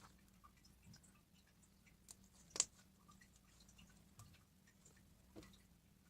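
Slime being handled: faint, scattered little sticky clicks and pops, with one sharper pop about two and a half seconds in.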